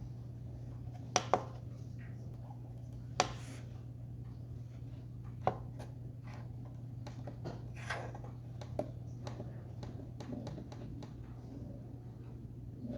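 Sharp knocks and clicks of something hard being handled, loudest twice about a second in and once a little after three seconds, then softer scattered taps, over a steady low hum.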